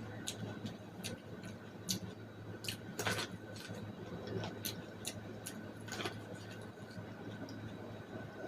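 Close-up eating sounds of boiled corn: irregular wet mouth clicks and chewing, with two louder bites or crunches about three and six seconds in, over a steady low hum.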